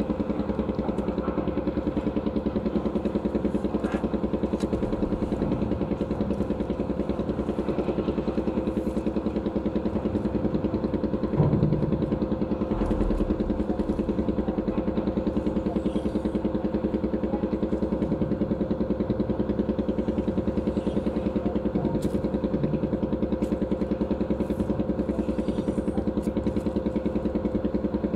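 An engine idling steadily, with an even, rapid pulse and no change in speed.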